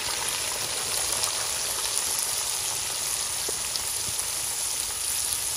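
Chopped onions frying in hot ghee in a large metal wok: a steady sizzling hiss with a few small pops as the onions begin to soften.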